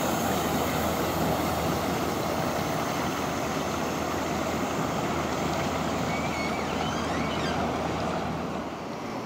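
Steam launch passing close by: a steady rushing hiss that drops away near the end as the boat moves off. A few faint bird chirps are heard in the middle.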